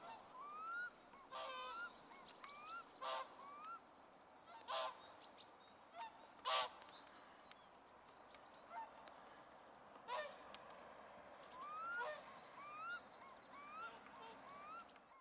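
Birds calling: about five loud, harsh, honking calls at irregular intervals, among many short, rising, whistled notes repeated throughout.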